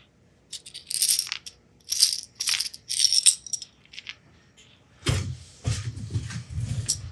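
Small metal machine screws and parts clinking and rattling as they are picked through by hand, in several quick clusters. About five seconds in, duller knocks and handling sounds follow.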